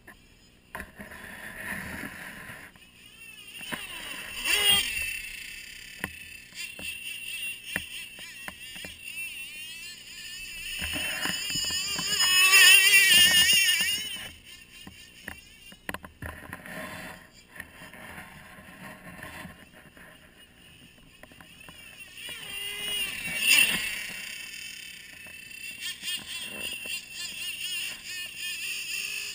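Motor of a radio-controlled Arctic Cat snowmobile model whining as it runs over snow, its pitch wavering up and down with the throttle. It is loudest about twelve to fourteen seconds in and again briefly near twenty-three seconds, and fades as the sled runs off.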